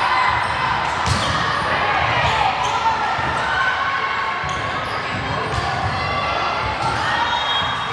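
Basketball game: the ball bouncing on the court again and again, with indistinct voices of players and spectators.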